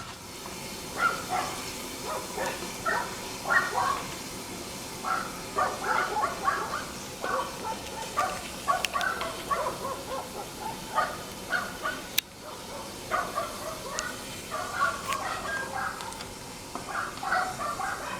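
Dogs barking repeatedly in short, irregular volleys, with a few sharp cracks between them, the loudest about twelve seconds in.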